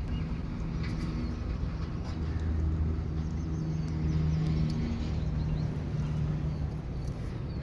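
Steady low hum of an engine running, swelling a little in the middle, with faint high chirps over it.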